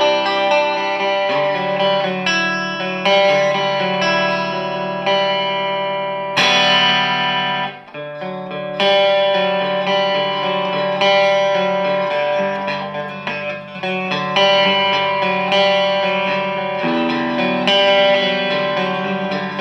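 Electric guitar played through a Dynamo GTS Flight Rig all-tube preamp on its crunch channel: lightly overdriven chords struck and left to ring one after another, with a hard, bright strum about six seconds in.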